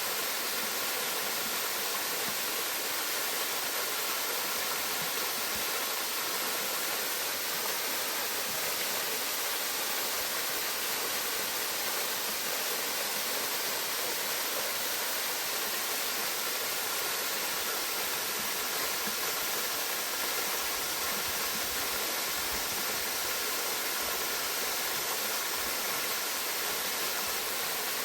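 Waterfall rushing steadily: a constant, even wash of falling water, bright and hissy with little low rumble.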